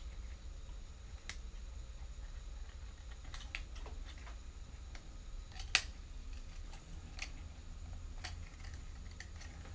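Plastic prop guards being pressed onto a toy quadcopter's plastic frame: a scattered series of light plastic clicks and snaps, the loudest a little past the middle, over a low steady rumble.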